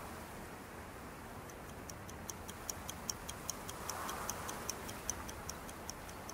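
A watch ticking quickly and evenly, about five ticks a second. It fades in about a second and a half in, grows louder and fades away near the end, over a faint steady hiss.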